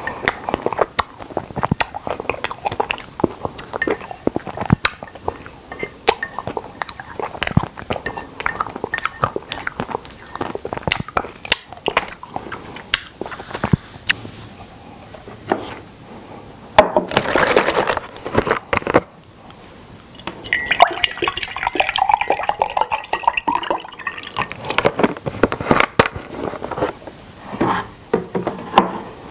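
Close-up wet mouth sounds of eating soft milk-caramel ice cream: smacking, sucking and chewing with sharp clicks. Past the middle, a drink is poured into a ceramic mug, its pitch rising steadily as the mug fills.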